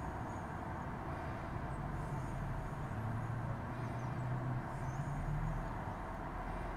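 Steady low rumble of road traffic, with a few faint, brief high bird chirps scattered through it.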